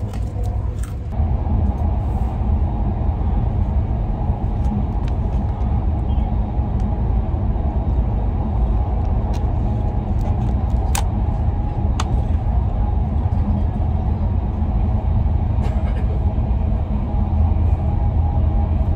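Steady rumble of a train running, heard from inside the passenger carriage, getting a little louder about a second in. Two sharp clicks sound just past the middle.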